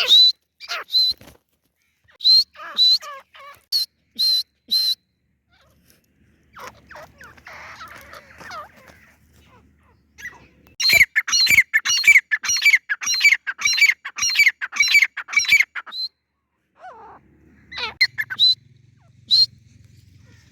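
Grey francolin calling: loud, shrill notes repeated in groups with short pauses, including a fast run of about a dozen notes in the middle.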